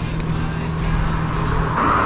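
Background music over road noise, with a vehicle passing near the end.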